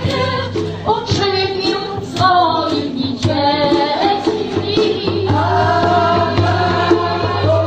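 Background music: a song with singing over a steady accompaniment.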